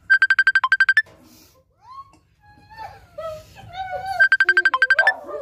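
An edited-in sound effect: a rapid run of identical high beeps, about a dozen in under a second, heard twice about four seconds apart, with voices between them.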